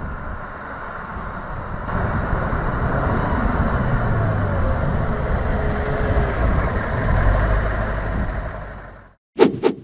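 Audi S8's 4.0-litre turbocharged V8 running at low revs as the car rolls slowly up, a deep steady rumble that grows louder about two seconds in. The sound cuts off abruptly just after nine seconds, and a brief loud burst follows.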